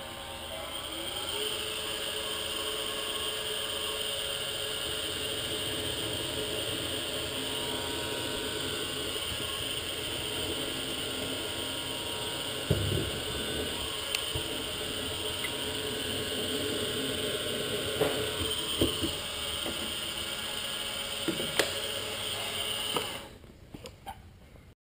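Titan TM25V milling machine's spindle spinning up and running with a steady whir while a twist drill bores into a bright mild steel T-slot nut, with a few short knocks along the way. The spindle shuts off near the end.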